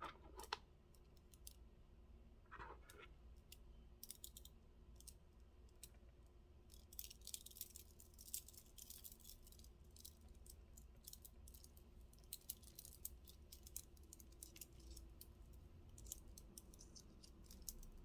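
Faint scattered clicks and light scratchy rustles of small objects being handled, thickest about seven to ten seconds in and again near the end.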